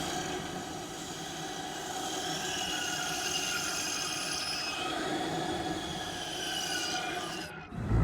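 Eerie Halloween sound effect: several high squealing tones slowly drift in pitch over a hiss. It fades and cuts off just before the end.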